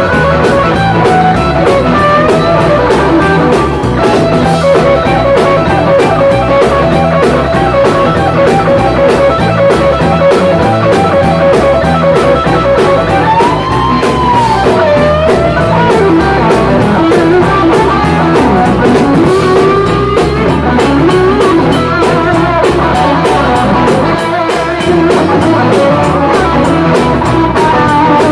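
A live rock-and-roll band playing loudly and steadily: electric guitars, bass guitar and drum kit, with a lead guitar line bending notes over the rhythm.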